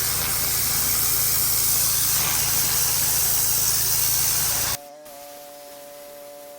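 Pressure washer spraying: a steady hiss of the water jet over a steady low machine hum. About five seconds in it cuts off abruptly, leaving quiet sustained synth music.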